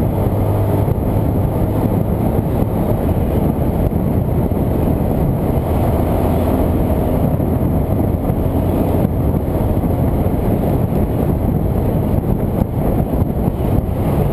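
Motorcycle running steadily at road speed, heard from a camera mounted on the bike: a steady engine drone under heavy wind rush on the microphone.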